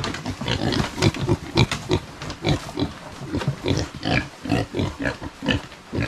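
A pen of young pigs grunting: many short, irregular grunts overlapping from several animals at once.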